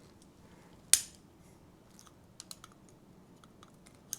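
Channel-lock pliers clicking against the metal tailpiece of a patio door lock as it is gripped and worked to snap off a notch: one sharp click about a second in, then a scatter of light ticks.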